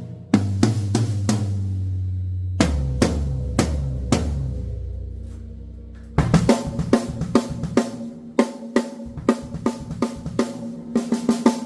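Acoustic drum kit played for a tone check. A few single strokes come first. About two and a half seconds in, low drums are struck and left to ring and fade. From about six seconds in, a steady groove is played on snare, bass drum and cymbals.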